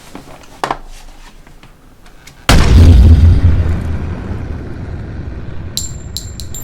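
A deep cinematic boom hits suddenly about two and a half seconds in and rumbles, slowly fading over several seconds. A few bright metallic clinks ring near the end.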